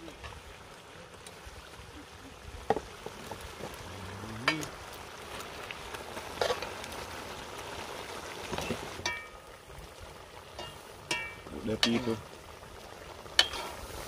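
A pot of fish stew simmering over an open wood fire, a steady sizzling hiss, with scattered sharp clinks and knocks of a metal spoon against the aluminium pot as fried fish are laid in and the gravy is stirred.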